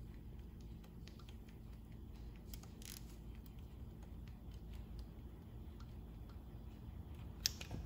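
Faint, scattered metallic clicks and ticks of a wrench working a rocker arm adjusting nut on a small-block Chevy 350 head as the nut is backed off slightly from too tight. There is a brief rustle about three seconds in and a sharper click near the end, over a low steady hum.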